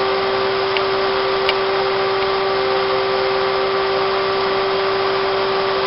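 Electric motor spinning a magnet disc inside a ring of copper strap, running at a steady speed with a constant whine over a hiss.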